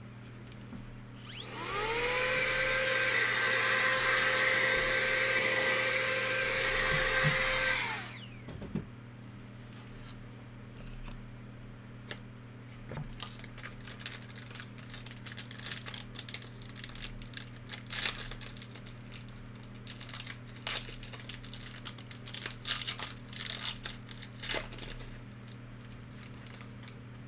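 A small electric motor spins up with a rising whine, runs steadily for about six seconds and winds down. Afterwards comes a run of crackles and rustles as a pack of trading cards is torn open and handled.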